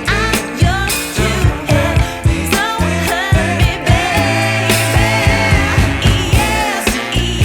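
Background pop song with a steady drum beat and a singing voice.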